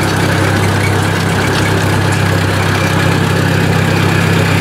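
Ford 800 tractor's four-cylinder engine idling steadily, running on a newly fitted electronic ignition in place of the old points and condenser.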